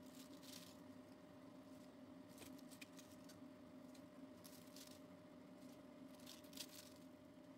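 Faint crinkling rustles of cabbage leaves being added and pressed into a pot of soup, in about four short bursts a couple of seconds apart, over a low steady hum.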